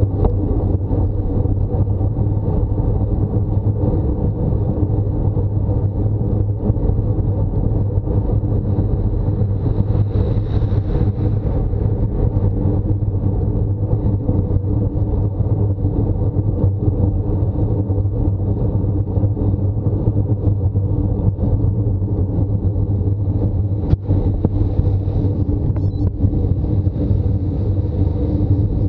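Steady, loud rumble of road and wind noise picked up by a camera mounted on a road bike rolling along asphalt.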